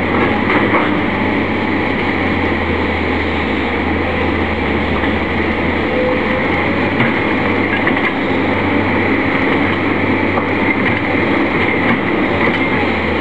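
Steady low drone of diesel engines running: an idling diesel locomotive and a tracked excavator loading spoil, with a couple of faint knocks.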